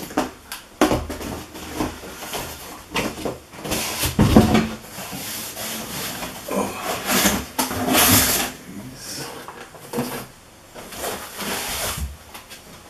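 Cardboard shipping box being opened by hand: flaps scraping and rubbing in irregular strokes, with a dull thud about four seconds in. Plastic wrapping rustles as it is pulled out.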